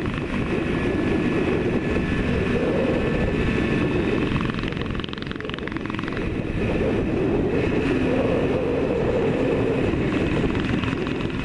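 Yamaha RD400 two-stroke parallel twin running under way, its exhaust heard from the rider's chin-mounted helmet camera together with the rush of riding wind. The engine note eases off briefly about halfway through, then picks up again.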